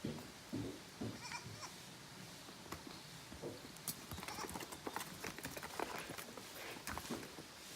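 Goats fighting: scattered sharp knocks and hooves clattering as they scuffle and butt.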